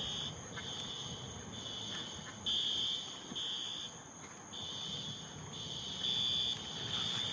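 System Sensor SpectrAlert Advance fire alarm horns sounding a high-pitched beeping tone. The repeated half-second beeps fall at uneven intervals and sometimes run together, because the horns are not synchronized with each other.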